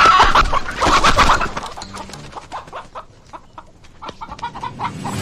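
A flock of chickens clucking and squawking in alarm as they are chased, with a loud flurry in the first second and a half, then quieter scattered clucks.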